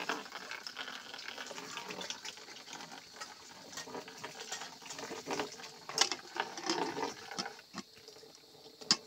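Chicken curry being spooned and poured from an aluminium pressure cooker into a small steel bowl, with metal utensils clinking and scraping. Sharp metal clanks, the loudest about six seconds in and near the end, as the pressure cooker's lid is set on and its handle closed.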